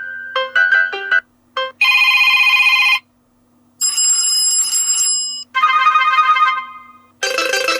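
Built-in ringtones of an ASUS ROG Phone 3 Strix Edition previewed one after another. Each plays for only a second or so and is cut off, with a short gap before the next. There are about five in turn: a repeating chiming tune, a buzzy electronic tone, bell-like chimes, a quick melodic pattern, and the start of another.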